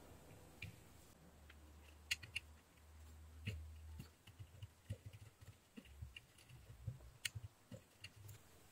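Faint, scattered small clicks and ticks, a few of them sharper, as a soldering iron tip works over the pads of a surface-mount IC on a circuit board, with a faint low hum underneath.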